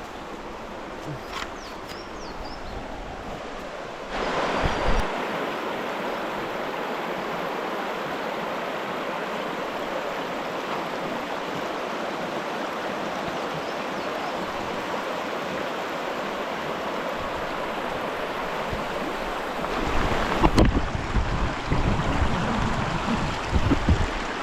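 Creek water rushing steadily over a riffle, growing louder about four seconds in. Irregular low thumps come in near the end.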